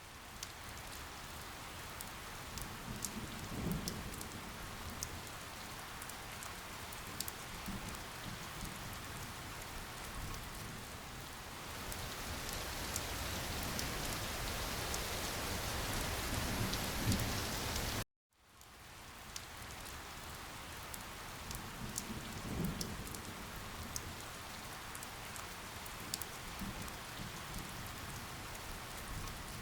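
Steady rain falling, with sharp drop ticks throughout. About 18 seconds in it cuts out completely for a moment and fades back in as the looped recording restarts.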